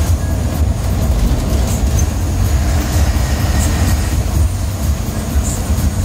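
Ashok Leyland bus under way, heard from inside the cabin: a steady, loud low rumble of engine and road noise, with faint small rattles.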